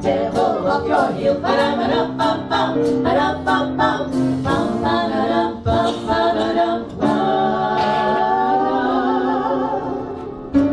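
Women singing a swing song into microphones, ending on a long held note with vibrato near the end.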